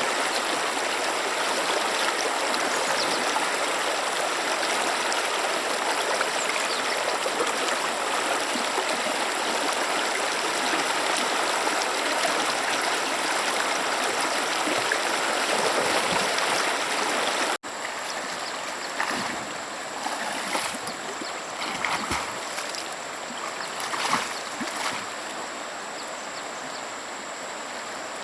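Stream water running steadily. After an abrupt cut about two-thirds of the way in, the flowing water is quieter, with scattered short knocks.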